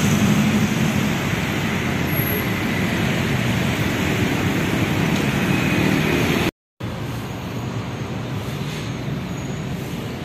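Steady road-traffic noise: a hum of passing engines and tyres. About six and a half seconds in it cuts off abruptly, then a slightly quieter, steady rushing noise takes over.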